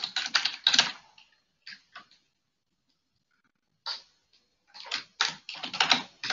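Typing on a computer keyboard in two quick runs of keystrokes, one in the first second and another from about five seconds in, with a few single keystrokes and a pause between.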